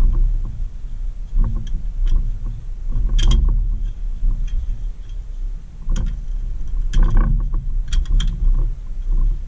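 Clinking and rattling of a vintage Tonka toy forklift's pressed-steel fork and mast parts as gloved hands work them apart, with scattered sharp metal clicks over a low rumble of handling. The loudest clinks come about three seconds in and again around seven to eight seconds in.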